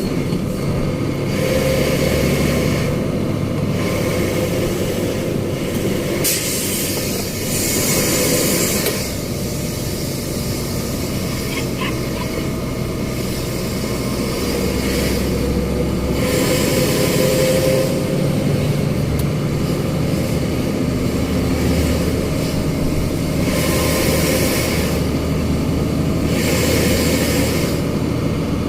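Heavy truck's diesel engine running steadily, heard from inside the cab as it moves slowly. Hissing noise a few seconds long comes and goes several times over it.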